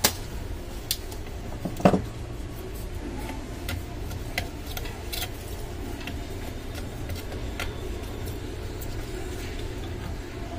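Scattered sharp clicks and light knocks from a circuit board and desoldering tools being handled on a workbench. The loudest click comes about two seconds in, over a steady low hum.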